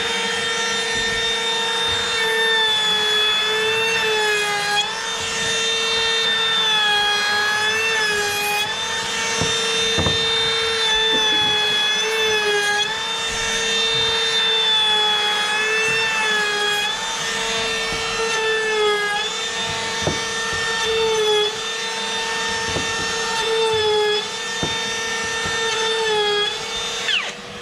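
Milwaukee M18 FUEL brushless cordless trim router running at a high whine while its bit cuts into a wood block. Its pitch dips briefly again and again as the bit bites, recovering in between. Near the end it switches off and winds down.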